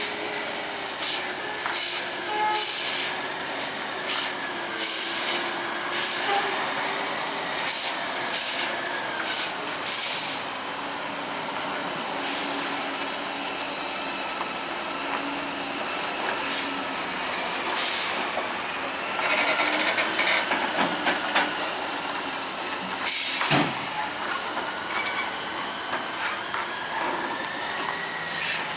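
Heavy DAF diesel trucks running, their engine pitch wavering, with repeated short sharp air hisses from the air brakes, many in the first ten seconds and a few later on.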